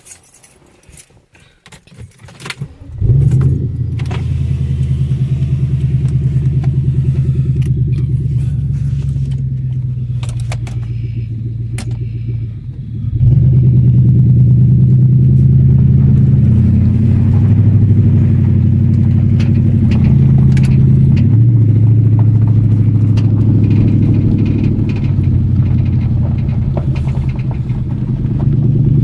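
Keys jangling and a few clicks, then a 1990 Lexus 4.0-litre V8 with open exhaust manifolds starts about three seconds in and runs loud and unmuffled. About ten seconds later it gets louder still, its pitch rising and falling as the engine is revved or driven.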